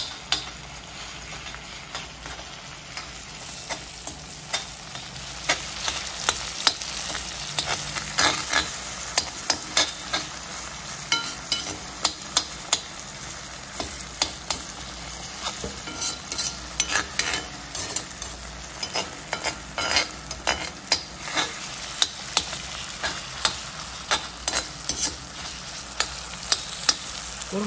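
Onions and tomatoes sizzling in hot oil while a steel perforated ladle stirs and scrapes them round a wok-shaped pan, with irregular sharp clicks as the ladle knocks the pan. The tomatoes are being fried soft enough to mash into the onions.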